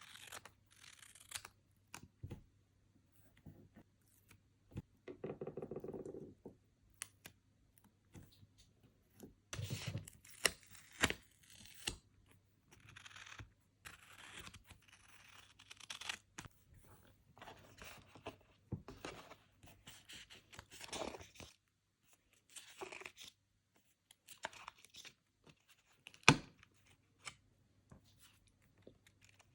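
Paper stickers being peeled off their backing sheets and pressed down by hand: a run of irregular short ripping peels, rustles and light taps. There is a longer pitched peel about five seconds in, and one sharp tap near the end.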